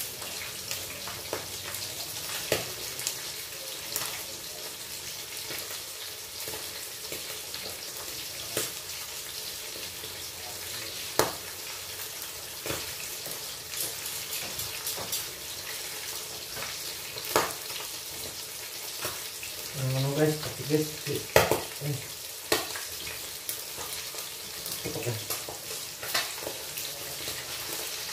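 Pieces of milkfish (bangus) frying in a pan: a steady sizzling hiss with scattered crackles and pops.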